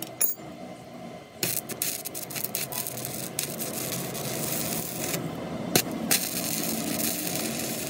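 Hand work on a workpiece: steady scraping and rubbing, with a few sharp clicks about a second and a half in and a single knock near six seconds.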